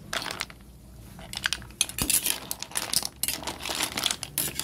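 Tulya (freshwater clam) shells clattering and clicking against one another as they are stirred in water. There are a few clicks at first, then a dense run of clattering from about a second in.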